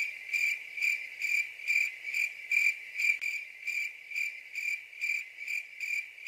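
Cricket-chirping sound effect: a high, even chirp repeating about two and a half times a second, with nothing else under it.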